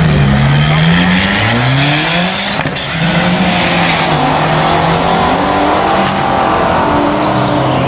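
Car engine accelerating hard, its pitch climbing in several runs through gear changes, then holding a steady note for the second half.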